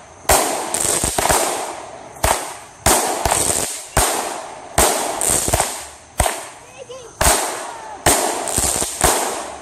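Aerial fireworks going off in quick succession: about a dozen sharp bangs, roughly one every half second to second, each followed by a short crackling tail as the stars burst, ending just before the close.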